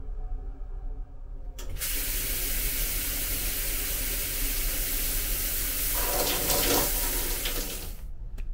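Handheld shower head spraying water against the bathroom wall, turned on about a second and a half in and cut off suddenly near the end. A sharp click of a wall light switch follows.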